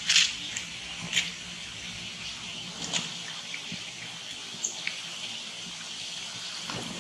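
River water rushing steadily, with a few short sharp clicks or squeaks standing out over it, the loudest right at the start and about a second in.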